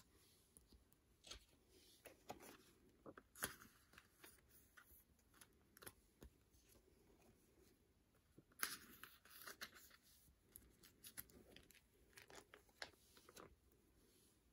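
Faint rustling and crinkling of plastic binder sleeves as photo prints are slid into the pockets and handled, with a few louder crinkles about three and a half seconds in and again around nine seconds.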